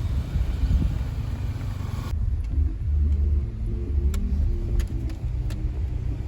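Low, steady rumble of a car ride heard from inside the vehicle, with an abrupt change about two seconds in and a few light clicks after it.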